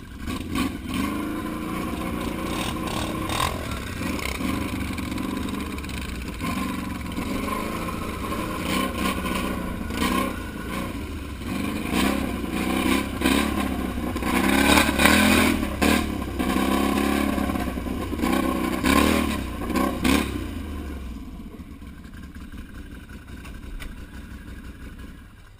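Snorkelled four-wheeler ATV engine running close up as the quad is ridden, revving up and down with rattling from the machine, loudest in the middle. About 21 seconds in it eases off to a low idle.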